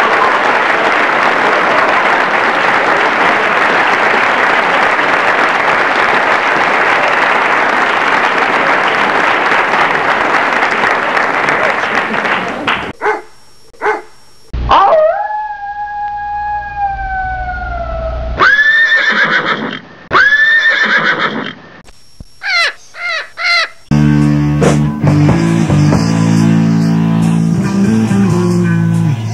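Steady noise of breaking ocean surf for the first twelve seconds or so. After a short break comes a canine howl: one long, slightly falling call, then several shorter calls that rise and fall. Rock music with guitar and drums starts near the end.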